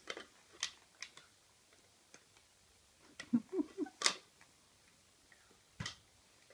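Standard poodle chewing a corduroy plush lobster toy: scattered soft clicks and mouthing sounds, with a few brief low squeaky sounds a little past the middle and a sharper click just after them.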